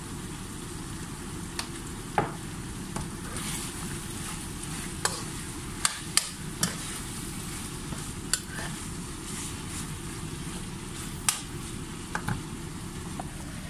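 A metal spoon stirring pork in coconut-milk sauce in a non-stick frying pan, with about eight sharp clicks of the spoon knocking against the pan. Under it, the steady sizzle of the simmering dish.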